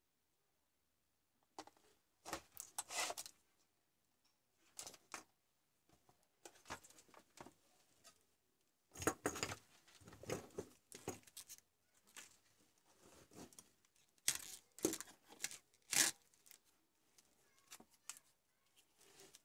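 Irregular handling noises starting about a second and a half in: rustles, clicks and light knocks as small tools and a mouse circuit board are picked up, moved and set down on a workbench.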